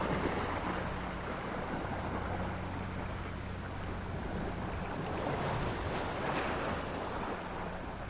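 Steady underwater rush with a low hum, as on a hydrophone recording of killer whales, with two faint killer whale calls about five and six seconds in.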